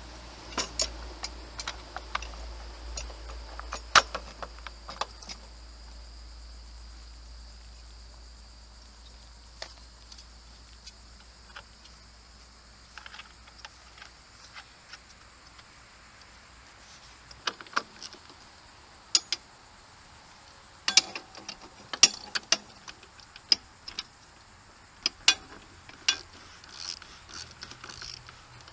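Scattered metallic clicks and knocks of a wheel bolt, washers and wrench being handled while the wheel is refitted to a push mower. A faint low hum stops a little past halfway.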